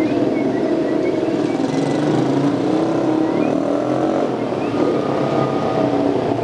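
Harley-Davidson motorcycle engine running steadily, its pitch wavering slightly up and down.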